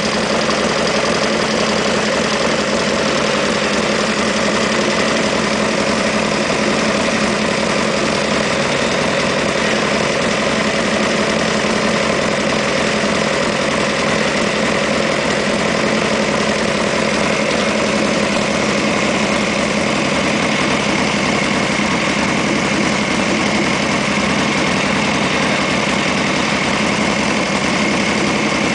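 Titan custom chopper's air-cooled V-twin engine idling steadily.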